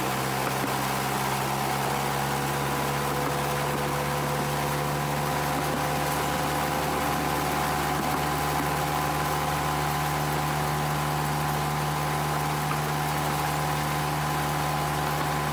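Miniature railway locomotive's engine running steadily at an unchanging pitch.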